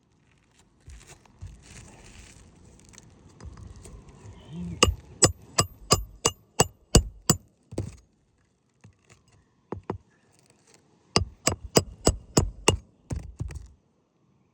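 Hammer blows on metal during shingle repair work, in two quick runs of about eight strikes each, roughly three a second, each with a short metallic ring. Before the first run comes softer rustling and scraping of shingles.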